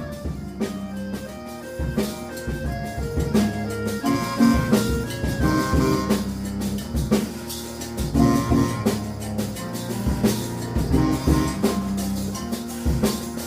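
Music: an instrumental ensemble with a drum kit, frequent drum strikes over held and moving pitched notes.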